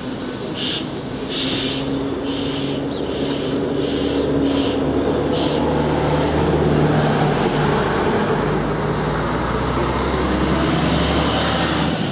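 An engine running, a low steady hum with a couple of steady tones, growing louder from about four seconds in and dropping away near the end.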